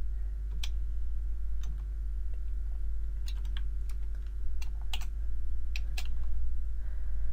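Computer keyboard being typed on slowly: single keystrokes at irregular intervals, some in quick pairs or clusters with pauses between, over a steady low hum.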